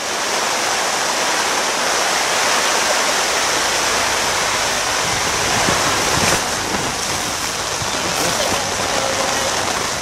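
Storm rain and wind beating on a family tent's fabric, heard from inside the tent as a steady, loud rushing hiss.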